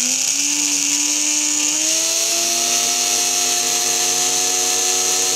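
Small 12-volt cassette-player DC motor running fast while overvolted to about 40 volts from a rectified variac: a steady high-pitched whine over a hiss. Its pitch steps up slightly near the start and again about two seconds in.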